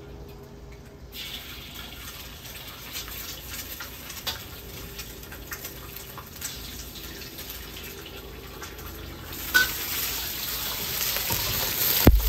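Egg sizzling in hot oil in a pan. The sizzle starts about a second in and grows louder near the end, with a sharp knock just before the end.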